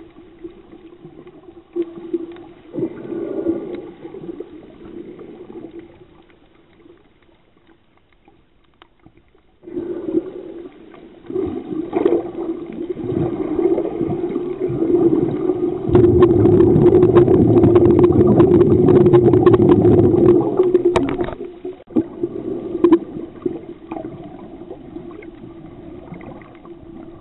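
Underwater sound picked up by the camera: a steady low hum with crackling water noise. The noise swells into a loud rushing stretch a little past the middle that lasts about five seconds.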